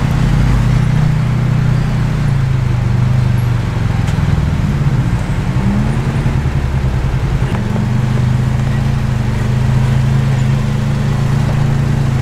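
4x4's engine running at low revs, steady with small rises and falls in pitch, as the vehicle crawls along a narrow rocky trail.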